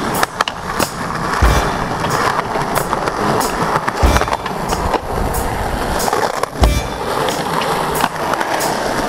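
Skateboard wheels rolling over rough asphalt, broken by the clack and thud of the board popping and landing. The heaviest landings come about four and six and a half seconds in.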